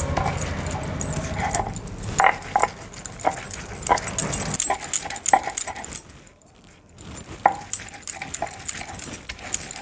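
Stone pestle grinding wet spinach leaves on a ribbed stone slab (sil-batta): a rhythmic scraping rub with knocks, bangles clinking on the wrists, and short squeaks. The steady rubbing stops about halfway through and goes quiet briefly, then single knocks go on.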